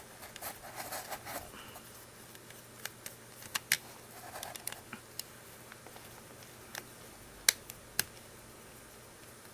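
Small plastic parts of a water flosser being handled during repair: light rustling and scattered clicks, with a sharp click about three and a half seconds in and two more, half a second apart, near the end.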